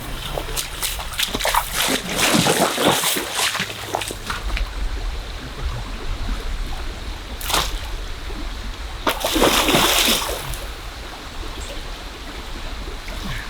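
River water splashing in irregular bursts over a steady rush of flowing water, with a sharp splash about halfway through and a longer, louder one a little later.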